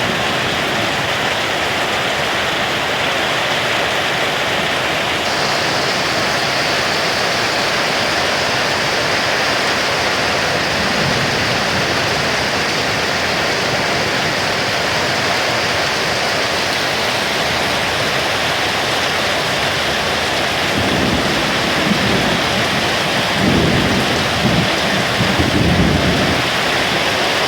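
Heavy rain pouring steadily, with low thunder rumbling about a third of the way in and again, louder, over most of the last six seconds.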